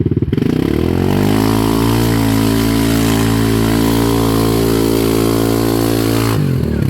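Yamaha Kodiak 700 ATV's single-cylinder four-stroke engine revving up quickly about a third of a second in and held at high revs while driving through a mud hole. The revs drop back suddenly near the end.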